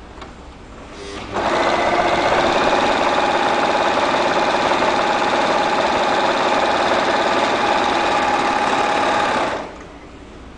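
Janome four-thread overlocker (serger) stitching through fabric at steady full speed. It starts up about a second in, runs evenly for about eight seconds and stops shortly before the end.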